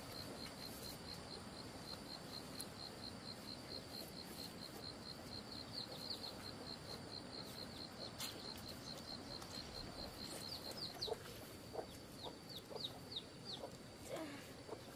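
Farm poultry heard faintly: soft low clucks and short, high, falling peeps of young birds in the second half. For the first two-thirds these sit over a steady, fast, high-pitched pulsing call of about five pulses a second.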